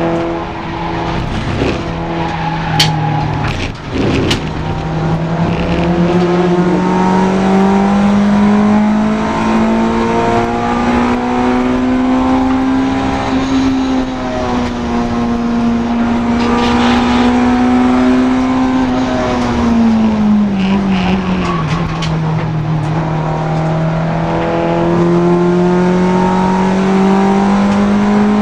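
Honda Integra DC2 four-cylinder race car engine running hard on track, its pitch climbing slowly, holding, dropping about two-thirds through and climbing again with throttle and gear changes. A couple of sharp clicks come a few seconds in.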